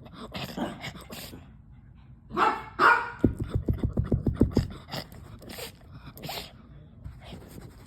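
A dog barking twice about two and a half seconds in, followed by a fast run of low pulses lasting about a second and a half, with short clicks and rustles scattered through.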